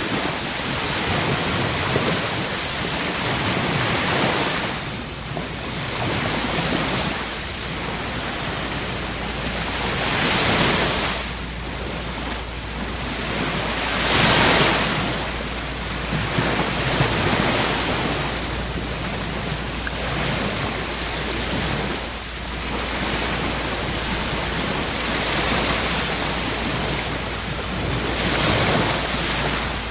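Ocean waves breaking and washing in, swelling and ebbing every few seconds; the loudest surge comes about halfway through.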